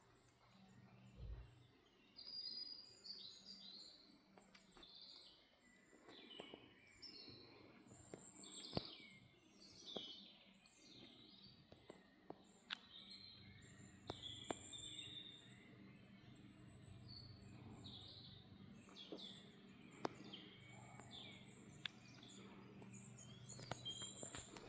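Small songbirds chirping and singing faintly, with a few soft clicks and a faint steady low hum underneath; no siren is sounding.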